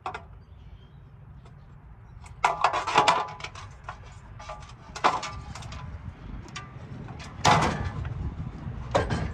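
Metal clanks and knocks from handling the aluminum parking-lot light housings: a cluster of ringing knocks about two and a half seconds in, then single ones near five, seven and a half and nine seconds.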